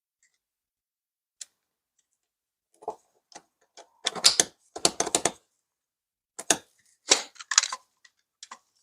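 Plastic clicks and short rattles of a Nerf Rival Takedown foam blaster's internal parts being handled and fitted, in irregular clusters that begin about three seconds in.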